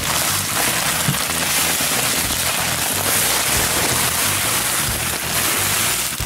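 Crushed malt grain pouring into a plastic bucket mash tun, a steady hiss, with background music underneath.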